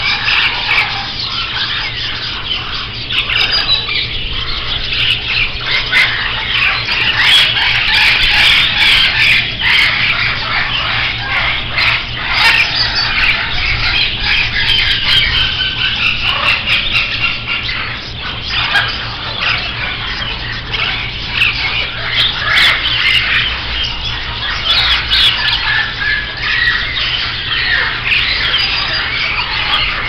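Many caged parrots and smaller birds squawking, screeching and chirping at once, a dense continuous din of overlapping calls.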